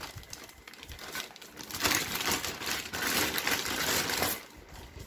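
Clear plastic bag crinkling as hands handle the welding cables packed inside it. It is busiest in the middle and dies away a little after four seconds in.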